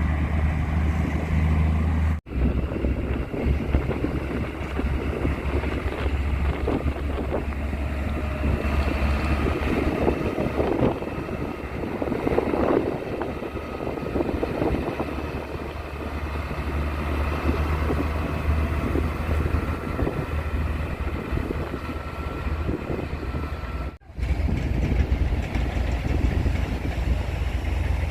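Heavy construction machinery running steadily, a low engine rumble with working noise over it, cut by two brief sudden dropouts, about two seconds in and near the end.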